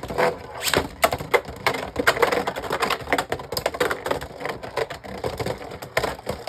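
Beyblade Burst spinning tops clashing in a plastic stadium: a rapid, irregular clatter of hits and scraping as the two tops knock into each other and the stadium walls.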